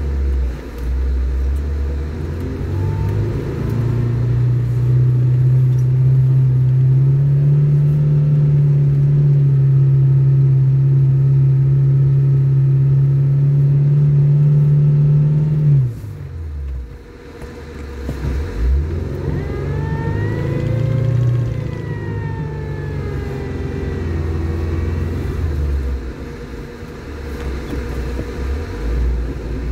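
Lada Niva's four-cylinder engine pulling at high, steady revs, then the throttle is lifted suddenly about halfway through. After that the revs rise and fall again, with a whine that rises and falls with them.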